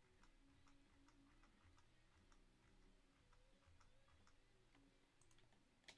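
Near silence with faint, irregular ticks, about two or three a second: a computer mouse's scroll wheel clicking as a list is scrolled.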